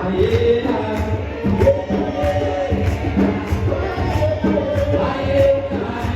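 Gospel singing with live church music: voices hold and slide between long notes over a steady percussion beat of about two strikes a second.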